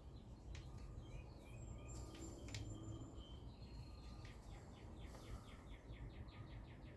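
Songbirds chirping faintly: short whistled chirps at first, then a rapid trill of repeated notes, about five a second, from about halfway through. A couple of faint clicks sound over a steady low hum.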